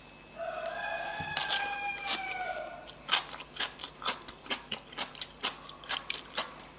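A rooster crows once in the background, one long call of about two and a half seconds. Then comes crisp, irregular crunching as someone chews raw kohlrabi salad, about three crunches a second.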